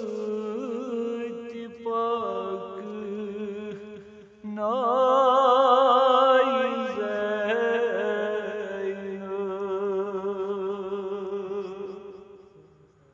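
A man chanting a noha, a Shia lament, in long, wavering, drawn-out notes. The voice pauses briefly about four seconds in, starts a new phrase, then fades out near the end.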